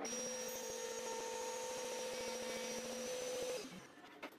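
Router table running steadily, with a fixed whine under a rushing noise, during a pass cutting a T-slot in phenolic-coated plywood. It stops suddenly a little before the end, followed by a few light knocks.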